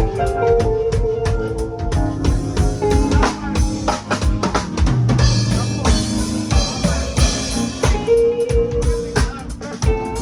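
Music with a driving drum-kit beat of kick, snare and rimshot hits under held melodic notes, played loud over a PA system during a sound check.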